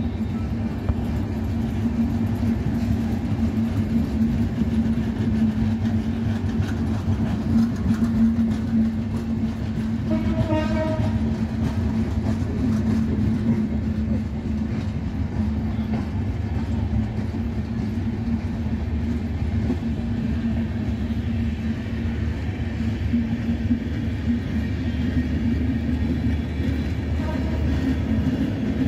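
Bangladesh Railway intercity passenger coaches rolling past, a steady rumble of wheels on the rails, with a short pitched tone about ten seconds in.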